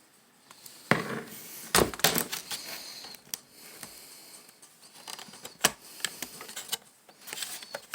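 Irregular clicks, knocks and light clatter of small hard plastic and metal parts being handled, as on a laptop being taken apart. There are sharp knocks about a second in and a cluster about two seconds in, then scattered clicks and a short rattle near the end.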